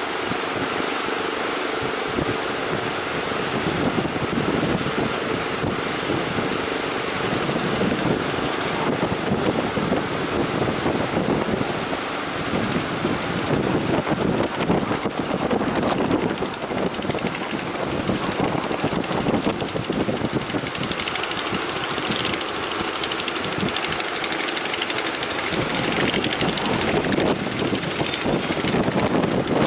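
Strong wind and surf, with a boat's outboard engine running steadily underneath.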